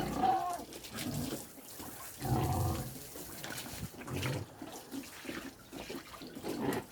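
Pigs grunting in short calls every second or two, over running water.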